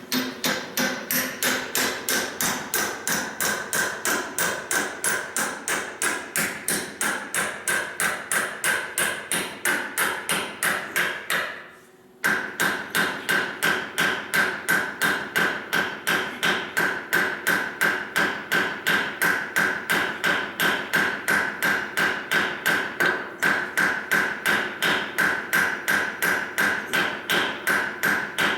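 Hammer blows driving a tight press-fit steel bushing into a heated cast iron hitch bore, struck fast and evenly at about three a second with a metallic ring. The blows pause briefly about twelve seconds in, then resume at the same pace.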